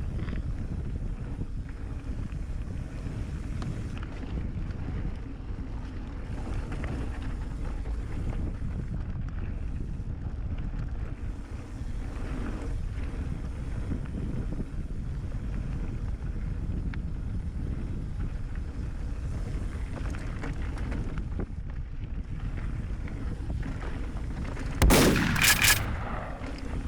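Mountain bike riding along a trail: a steady rush of wind on the microphone with tyre rumble from the trail surface. Near the end comes a sudden loud bang and clatter, lasting about a second.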